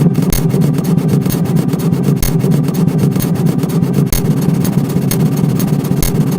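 US Emergency Alert System attention alarm, digitally sped up to an extreme rate, heard as a dense, steady low buzz with a sharp click about every two seconds.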